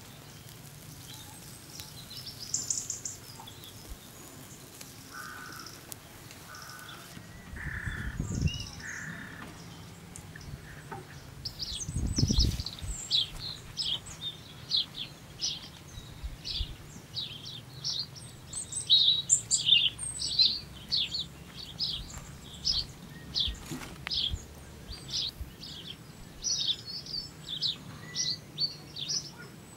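Songbirds chirping outdoors: a dense run of short, high chirps, about two a second, fills the second half, after a few lower calls early on. Two low thuds come in the first half.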